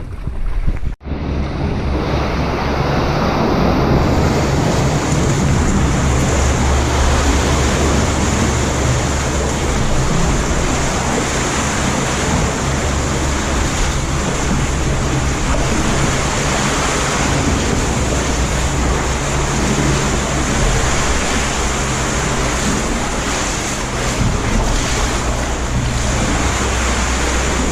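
Wind blowing across the microphone over the wash of Lake Superior waves, a steady loud rumble with no distinct strokes.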